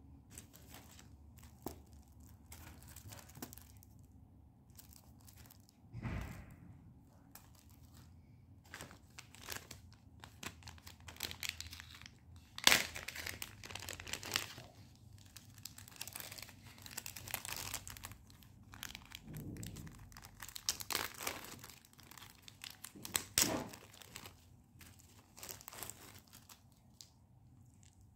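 Packaging crinkling and tearing as a parcel is unwrapped by hand, in irregular bursts, with one sharp click about halfway through.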